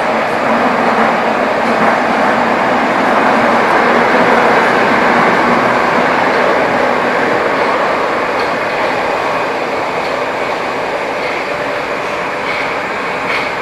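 Interior running noise of a Metrowagonmash 81-775/776/777 'Moscow-2020' metro train in a tunnel: a steady, loud rumble of wheels and running gear. It peaks about four seconds in, then eases off as the train slows into a station.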